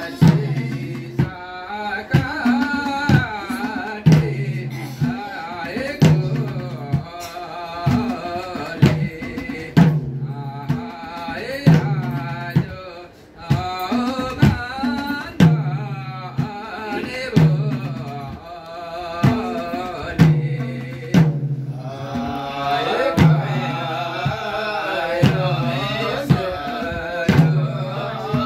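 Men singing a Gurung (Tamu) ritual song to several madal hand drums, which keep a slow, steady beat of deep strokes with sharper slaps between. The singing grows fuller about two thirds of the way through.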